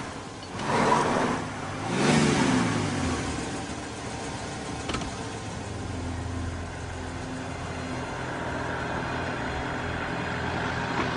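Car engine revving hard with a rush of tyres spraying dirt, then the engine pitch dropping quickly as it passes, then settling into a steady low engine drone.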